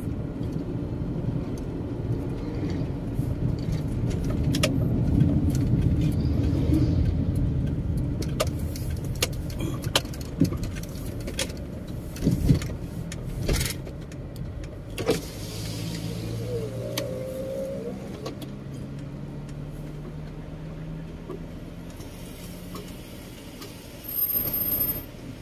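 Car cabin noise while driving: a steady low rumble of engine and road that swells and then eases to a quieter hum, with scattered light clicks and a short louder sound near the end.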